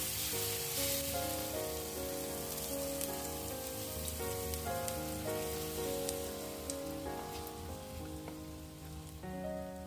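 Shredded cabbage mixture sizzling in hot oil in a frying pan, loudest in the first couple of seconds after it goes in, over background music.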